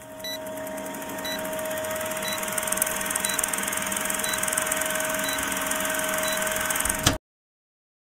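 Film countdown leader sound effect: an old film projector running with steady hiss and rapid mechanical clatter over a constant tone, and a short tick about once a second. It ends with a click and cuts off about seven seconds in.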